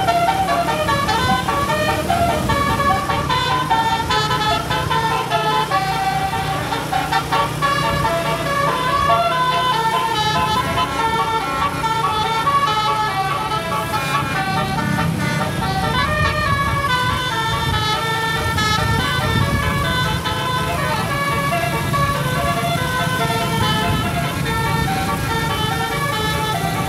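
Bus telolet horn, a set of multi-tone air horns, playing a long unbroken run of quick melodic notes that change pitch every fraction of a second, over the bus's engine running.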